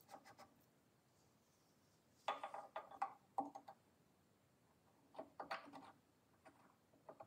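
Small metal clicks and clinks as the counterweight gear of a Predator 420 engine is fitted into the open crankcase and its teeth meshed with the crankshaft gear. They come in two short clusters, about two seconds in and again about five seconds in.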